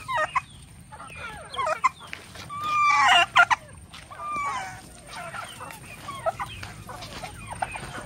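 A flock of free-range chickens clucking and squawking, with a turkey tom calling among them. The loudest call, with a sliding pitch, comes about three seconds in and is followed by two sharp clicks.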